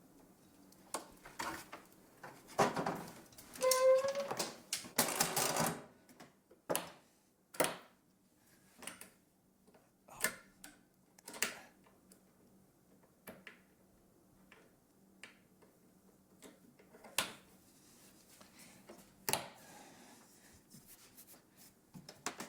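Flip-top tool cart being tried out: irregular wooden and metal knocks and clunks, with a clattering, scraping stretch a few seconds in that carries a brief squeak.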